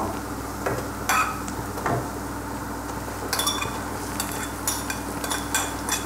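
Sliced onions sizzling in oil in a frying pan as chopped boiled wild chicory greens (hindbeh) are scraped onto them, with several light clicks of a metal utensil against the plate and pan.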